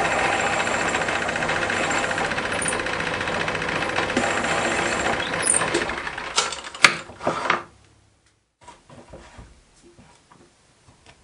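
Metal lathe running steadily while a centre drill in the tailstock chuck cuts a centre hole in the hub of a spinning cast flywheel. Near the end come a few sharp clicks and scrapes, the loudest about seven seconds in, then the lathe stops and only faint small clicks remain.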